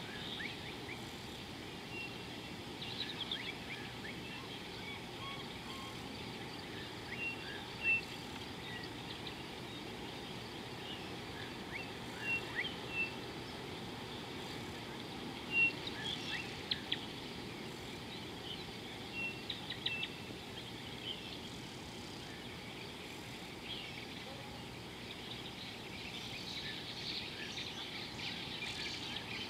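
Birds chirping now and then, short high calls in scattered groups that grow more frequent near the end, over a steady outdoor background hiss.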